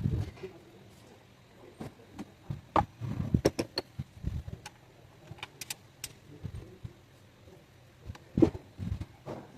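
Irregular metallic clinks and knocks of hand tools and engine parts being handled and fitted, with a few duller thumps; the loudest knock comes near the end.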